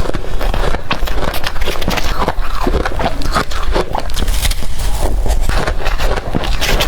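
Close-up crunching of blended ice being bitten and chewed, a rapid irregular series of crisp crackles over a low rumble.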